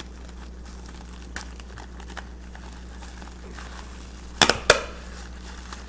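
Plastic bag crinkling in the hands as it is wrapped with adhesive tape, with two short, loud rasps of tape pulled off the roll about four and a half seconds in.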